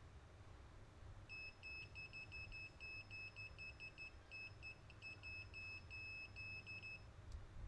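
Electronic beeper sounding a quick, irregular string of short and longer beeps at one high pitch for several seconds, followed by a single click.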